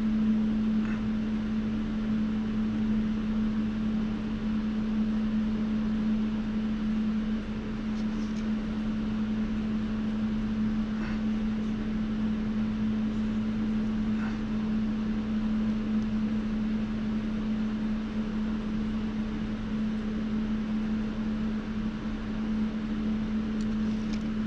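Steady hum of a space heater's fan running, holding one low tone throughout, with a few faint light ticks from small wooden pieces being handled.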